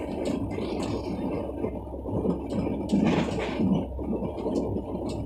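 Running noise of a moving passenger train heard inside an air-conditioned three-tier coach: a steady rumble with a few faint clicks.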